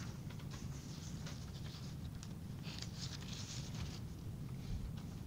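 Quiet classroom: a low steady hum with faint scattered rustling and light taps.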